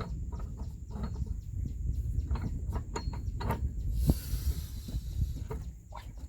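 Irregular clicks and light knocks of hand work on machinery over a steady low rumble, with a brief hiss about four seconds in.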